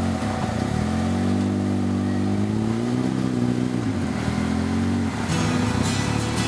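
Polaris RZR side-by-side's engine revving up and down in repeated pulses as it crawls over rocks and tree roots, pitch rising and falling with the throttle.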